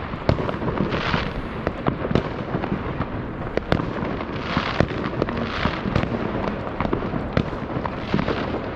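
New Year's fireworks going off all around: a dense, unbroken run of overlapping bangs with crackling in between, several sharp reports a second.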